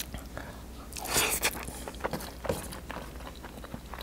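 A person eating a handful of rice and mutton stew by hand: mouth sounds of biting and chewing, the loudest a little over a second in.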